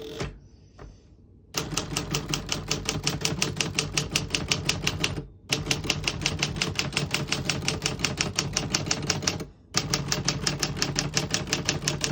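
Rapid keystrokes on a 1954 Remington Quiet-Riter manual portable typewriter, the typebars striking the platen in a fast, even clatter that starts about a second and a half in. The typing pauses briefly twice.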